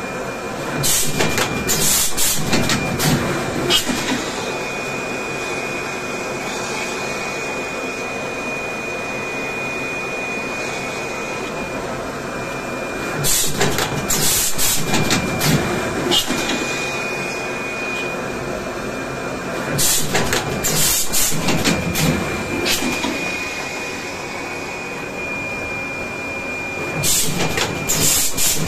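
Box wrapping machine running with a steady hum and a thin high whine, broken four times by bursts of clattering and clunking a few seconds long as the plunger drives a box through the wrapping section.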